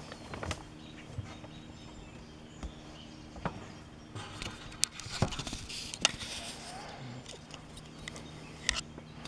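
Scattered light knocks and rustling as someone gets up from a folding camp chair and moves about on a wooden deck, then camera handling noise as the camera is picked up, with a few sharper clicks near the middle and near the end.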